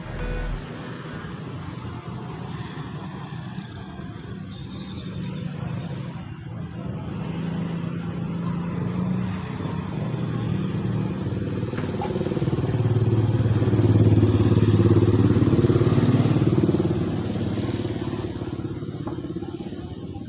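An engine running, growing louder to a peak about two-thirds of the way through and then fading, its pitch dropping about halfway through.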